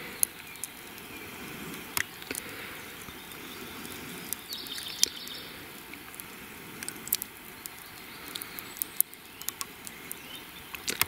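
Faint outdoor ambience with scattered small clicks and crackles, and a brief high chirp about four and a half seconds in.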